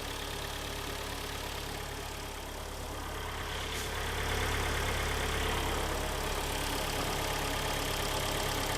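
Kia Sportage's freshly rebuilt four-cylinder petrol engine idling just after its first start, a little louder about four seconds in. It runs somewhat loud and harsh, as the new oversize pistons and rings have yet to bed in.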